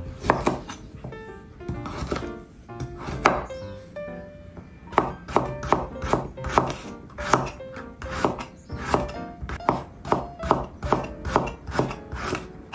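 Kitchen knife chopping a carrot on a wooden cutting board: a few separate cuts, then from about five seconds in a steady run of chops, about two to three a second. Quiet background music underneath.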